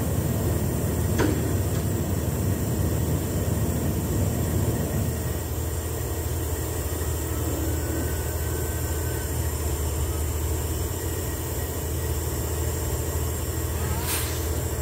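Heavy diesel truck engine running steadily at a recovery scene, a deep rumble that eases a little about five seconds in. There is a faint tick about a second in and another near the end.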